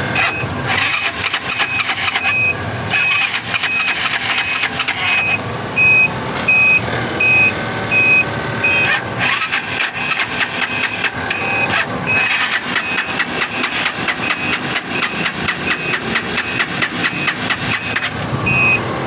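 Gas-fuelled auto rickshaw engine being started and running, its firing heard as rapid, even ticks, with a short high electronic beep repeating about twice a second.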